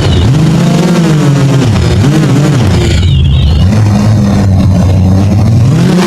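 DJI quadcopter's motors and propellers whining loudly, heard from a microphone strapped to the drone itself. The pitch rises and falls several times as the motors speed up and slow down in flight, with a brief dip in the hiss about halfway through.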